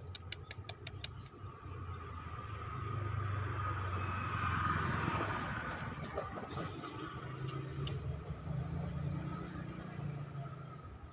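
A motor vehicle passing by, its engine noise swelling to a peak about five seconds in and then fading away. A quick run of sharp clicks comes in the first second.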